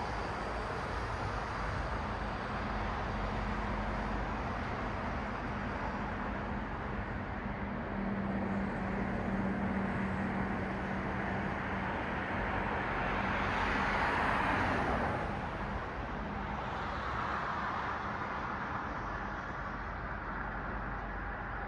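City road traffic before dawn: a steady wash of tyre and engine noise with a low steady hum through the first half, and cars passing, one louder about two-thirds of the way in and a fainter one just after.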